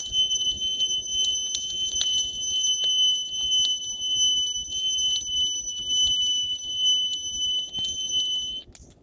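A loud, steady high-pitched whine that starts abruptly and cuts off suddenly after about eight and a half seconds, over scattered sharp crackles and a low rumble.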